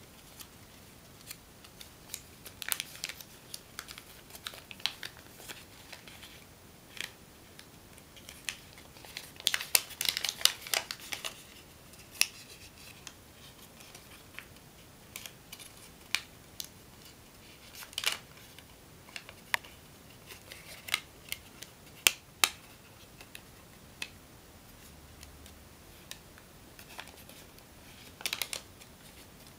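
Sheet of two-coloured origami paper crinkling and crackling as it is opened out and refolded by hand, in scattered crisp clicks and rustles with a denser flurry about ten seconds in.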